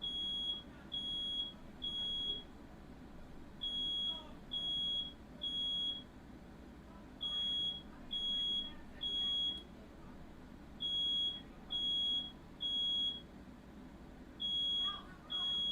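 Smoke alarm sounding in the evacuation pattern: a high steady beep three times, then a pause, over and over, about five rounds. It has been set off by smoke from a fire.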